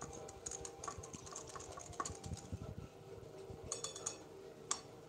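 Steel wire whisk stirring a thick creamy sauce in a glass bowl, its wires clicking and tapping against the glass in quick irregular ticks, with a short flurry of taps near the end and one sharper click.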